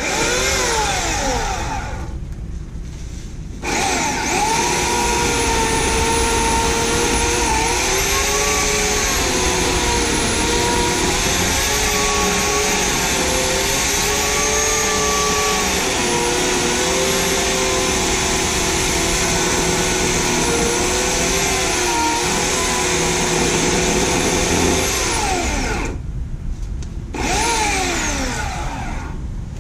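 Homelite 16-inch corded electric chainsaw's motor whining. It spins up and coasts down once, then runs for about twenty seconds with its pitch dipping and wavering as it cuts brush. It then winds down, with one more short burst near the end.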